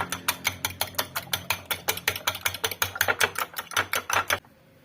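Three eggs being beaten in a bowl, a utensil clicking rapidly against the bowl at about nine strokes a second, then stopping suddenly near the end.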